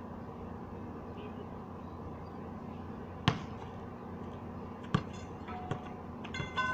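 Basketball bouncing on a concrete court: a few separate sharp thuds, the loudest about three seconds in, then two more a couple of seconds later.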